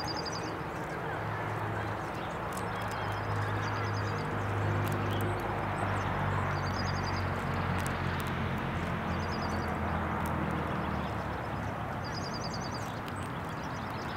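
A small songbird repeats a short, high, trilled call about every three seconds, five times in all, over steady outdoor hiss and a low rumble. Scattered faint sharp clicks come from squirrels cracking sunflower seeds.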